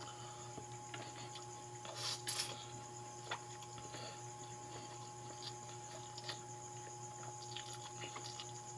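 Close-up eating sounds of noodles and fried dried fish: soft wet chewing and lip smacks with scattered small clicks, and a brief louder slurp of noodles about two seconds in. A steady hum runs underneath.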